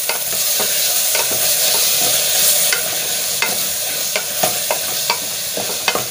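Onion-tomato masala with coriander and mint leaves frying with a steady sizzle in an aluminium pressure cooker as a spatula stirs it, the spatula scraping and knocking against the pot at irregular moments, about once a second.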